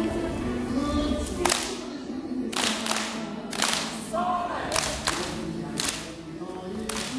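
Bon odori dance song playing with a singing voice, and sharp group hand claps about once a second, some in quick pairs, ringing in a large hall.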